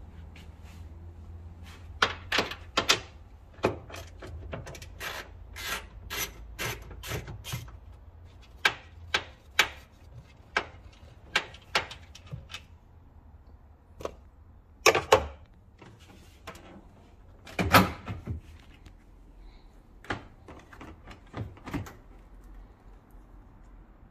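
Sharp clicks, taps and knocks from hand work on a Nissan 370Z's tail light: a ratchet wrench turning the mounting bolts, then the plastic tail light and its trim being handled and pulled free. The clicks come quickly in the first third, and two louder knocks follow past the middle.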